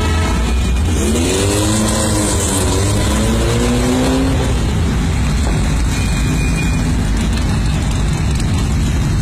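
Air-cooled flat-four engines of several Volkswagen Beetles running as a column of them drives slowly past, with one engine revved up and down twice in the first half.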